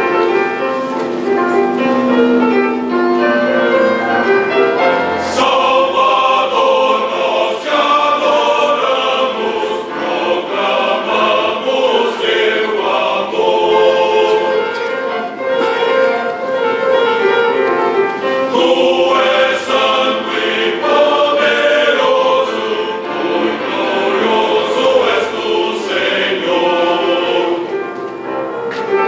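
Choir singing a hymn with instrumental accompaniment; the sound grows fuller about five seconds in.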